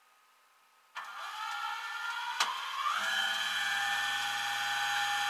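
Flatbed tow truck's hydraulic bed machinery running as its levers are worked. Mechanical noise starts suddenly about a second in, and a sharp click comes a little past the middle. Then a whine rises in pitch and holds steady over a low hum.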